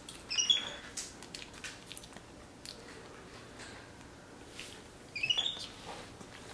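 Capuchin monkey giving two short, high-pitched chirping trills, one about half a second in and one about five seconds in, with faint wet clicks of it chewing banana in between.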